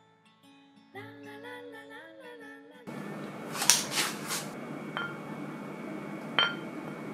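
Background music with acoustic guitar that stops suddenly about three seconds in. Then a quick cluster of sharp clacks, followed by two short ringing clinks of glass beer bottles touching, the second one louder.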